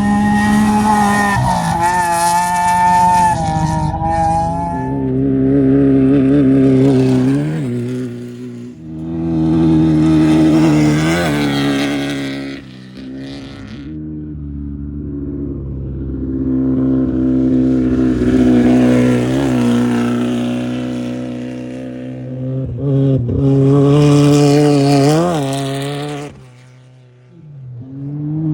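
Off-road race vehicles passing one after another at full throttle, several in turn. Each engine note rises to a peak and then drops in pitch as it goes past.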